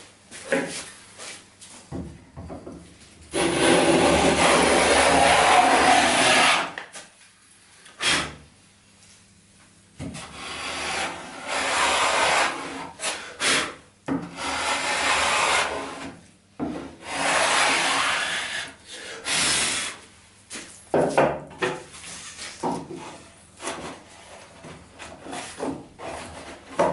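Wooden hand plane taking long strokes along the end grain edge of a solid-wood table top, cutting the tongue for a breadboard end: four long rasping passes of a few seconds each, with short knocks of the plane on the wood between them, then shorter, lighter strokes and clicks near the end.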